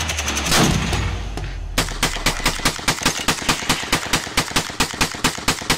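Music for the first second or so, then from about two seconds in a drum-fed long gun firing a fast, even string of shots, about five a second.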